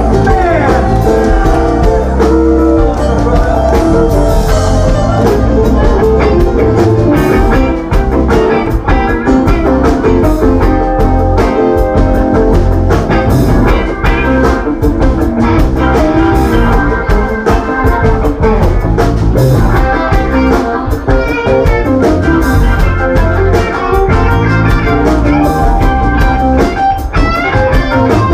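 Live band jamming: electric guitar lead lines over a drum kit and keyboard, played continuously and loud.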